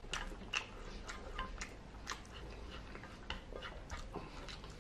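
Close-up chewing of a mouthful of cheesy spaghetti and meat sauce: soft, irregular wet mouth clicks and smacks, a few every second.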